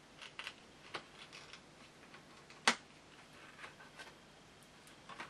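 Light clicks and crackles of doll packaging being handled as its card is taken out, with one sharper snap about halfway through.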